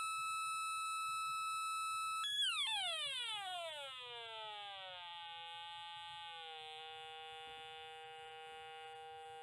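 Electronic tone from a 555 timer sound-generator circuit: a steady high beep that, about two seconds in, slides smoothly down to a much lower steady tone as the resistance setting its pitch is changed.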